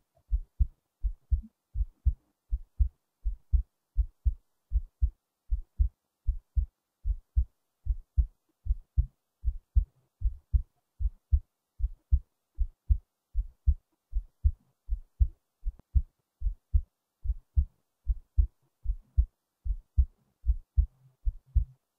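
A person's heartbeat: steady paired lub-dub beats, a little over one a second, each pair a short low thump and a second, softer one.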